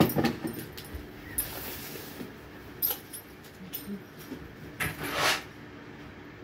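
Handling sounds: a few sharp knocks and clicks, with a short hiss about a second and a half in and a louder rustle about five seconds in.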